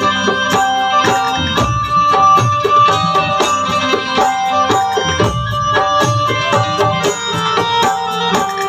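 Instrumental interlude of a live Bhojpuri devotional song: a steady tabla rhythm under a held keyboard melody.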